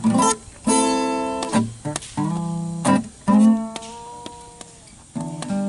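Acoustic guitar strummed in chords, each stroke struck sharply and left to ring. In the second half one chord is left to ring out and fade for about a second and a half before the strumming starts again.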